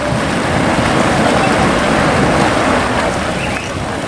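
A boiling hot spring pool bubbling and steaming: a steady, loud wash of noise.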